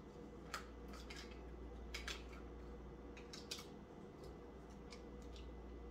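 Faint scattered clicks and light taps, about half a dozen, from small objects being handled at a table, over a steady low hum.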